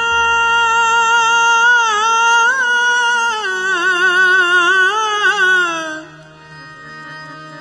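A man singing kirtan holds one long high note, then ornaments it with quick wavering turns and slides down, breaking off about six seconds in. Harmonium reeds sound steadily underneath and carry on softly after the voice stops.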